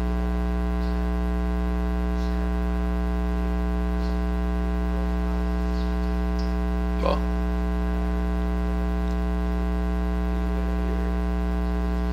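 Steady electrical mains hum, buzzy with many evenly spaced overtones, with one brief noise about seven seconds in.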